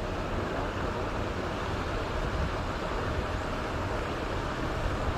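Wind buffeting the microphone with a fluctuating rumble, over a steady splashing hiss of water churned by pond aerators.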